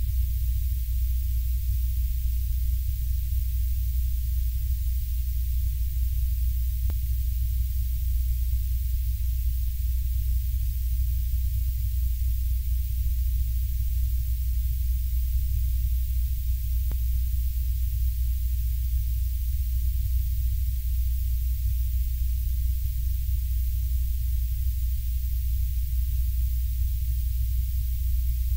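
Steady deep rumble with a thin hiss above it, unchanging throughout: a synthetic ambient noise drone. Two faint ticks sound about ten seconds apart.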